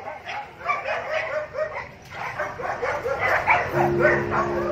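A pack of excited dogs, huskies among them, barking, yipping and whining together in many short, overlapping rising-and-falling calls. A steady held tone sets in near the end.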